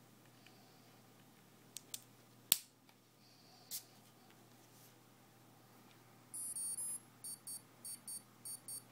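A T-plug battery connector clicking as it is pushed together, with one sharp snap about two and a half seconds in. Later, a Kontronik Koby 40 LV electronic speed controller, now powered, gives a long high-pitched tone and then three pairs of short beeps, its start-up or status signal while its LED flashes a fault code.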